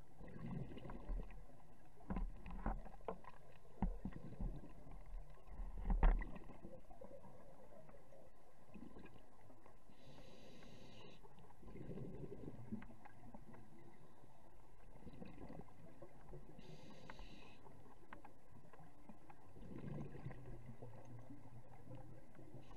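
Scuba diver breathing underwater through a regulator: a short hiss on each inhale, followed by a low bubbling rumble on each exhale, the cycle repeating about every six or seven seconds. Several sharp knocks in the first six seconds, the loudest about six seconds in.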